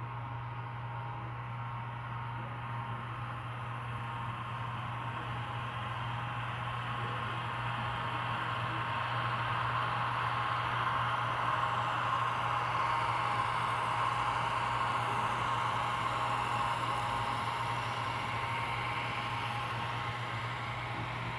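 Model Santa Fe F7 diesel locomotives and a train of express cars rolling past on the layout track, a whirring, rattling running noise over a steady low hum. It grows louder as the locomotives come past, about halfway through, then eases off as the cars follow.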